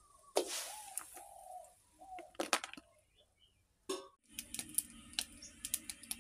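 Light plastic clicks and knocks as a clear plastic container is handled and tipped over a pot of boiling pork bones, with a brief rush as its contents pour out about half a second in. Bird calls sound in the background. After a short break about four seconds in, a steady low hum comes in with more light clicks.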